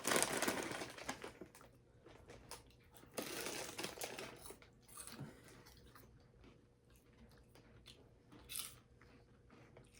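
A snack bag rustling for about the first second and a half, then someone crunching and chewing caramel popcorn in short, scattered bouts.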